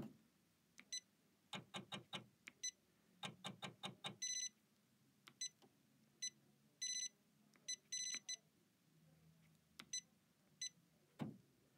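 Janome 500E embroidery machine's touchscreen beeping as its arrow and rotate keys are tapped: quick runs of short beeps and single beeps, with a few longer beeps about four, seven and eight seconds in. Each beep is the machine's confirmation of a key press.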